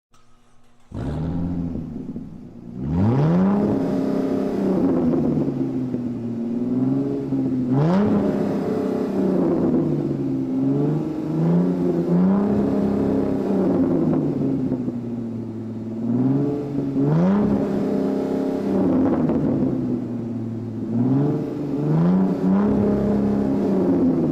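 Supercar engine revved again and again, each rev rising in pitch and falling back to a steady idle. The sound begins suddenly about a second in.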